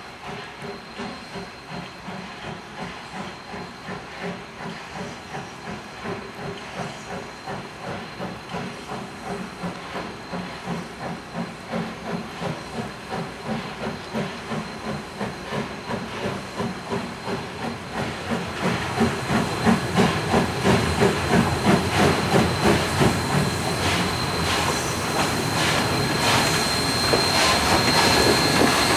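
Wilmington & Western 0-6-0 steam locomotive No. 58 working toward the listener, its exhaust chuffing about two beats a second and growing steadily louder, with steam hissing as it comes close near the end.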